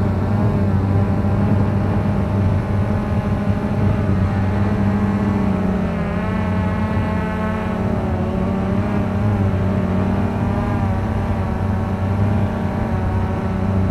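Cheerson CX-20 quadcopter's motors and propellers buzzing steadily, recorded by the camera on board, with the pitch wavering slightly as the drone holds low over the ground.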